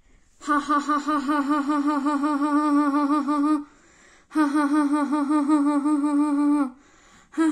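A voice humming long held notes with a fast, even wobble in pitch: two notes of about three seconds each with a short break between them, and a third beginning near the end.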